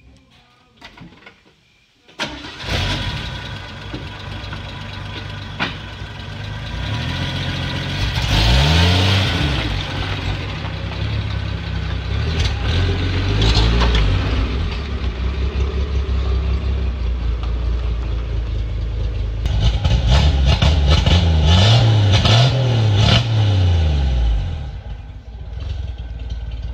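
1965 GMC dump truck's 250 straight-six catching about two seconds in and then running at idle, with the revs rising and falling several times as the throttle is blipped, once about a third of the way in and a few times near the end.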